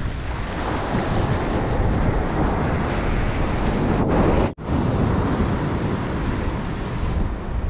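Ocean surf washing up and over the sand in a steady hiss, with heavy wind buffeting on the microphone. The sound cuts out for an instant about halfway through.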